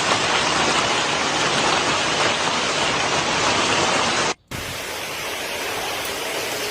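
Storm footage audio: a loud, steady hiss of heavy rain and wind. It cuts off abruptly about four seconds in, and after a moment's silence a quieter steady rain hiss follows.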